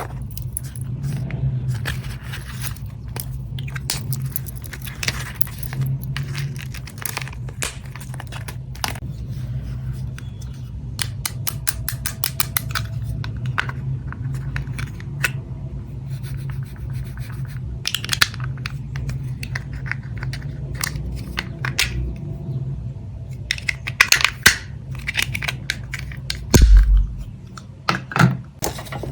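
Small plastic and paper stationery items being unpacked and handled: packaging crinkling and tearing, with scraping and clicking of small items throughout. A heavy low thump lands near the end.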